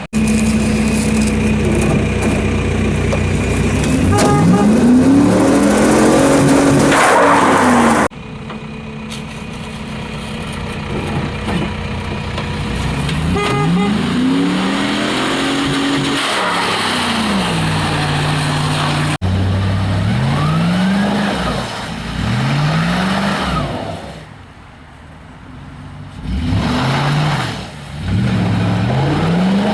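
Chevy pickup's 5.3 L LS V8 revving up and falling back again and again, with a quicker series of short revs near the end, while the truck is launched hard to test the powertrain.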